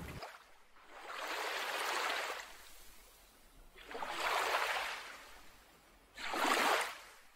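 Ocean waves washing in three times, each surge swelling and fading over a second or two, the last one shorter and sharper.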